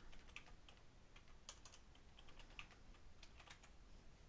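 Faint typing on a computer keyboard: a run of quick, irregular keystrokes.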